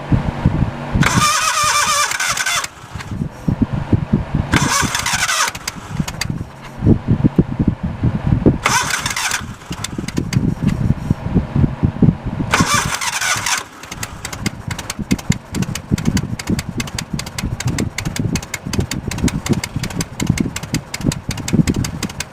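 Backhoe's carbureted engine being started and running rough, stumbling and jumping around unevenly through its exhaust, with four short louder bursts of higher-pitched noise. The rough, uneven running points to a problem beyond the carburetor; the owner wonders whether a bound-up hydraulic pump is dragging it down.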